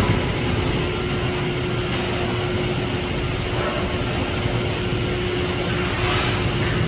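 Electric welding arc on tube, a steady noisy hiss and crackle over a constant hum.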